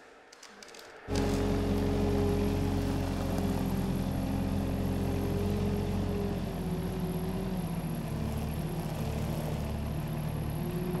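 Rough-terrain forklift engine running steadily while the forklift holds a stone slab on its forks. The engine comes in abruptly about a second in, after a quiet start.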